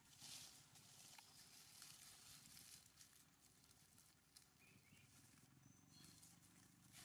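Near silence: faint outdoor background hiss with a few soft ticks and rustles.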